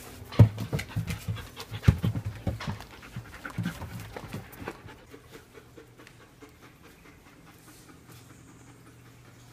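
White Swiss Shepherd dogs panting, with short scuffs and knocks in the first half; the sound dies down after about five seconds.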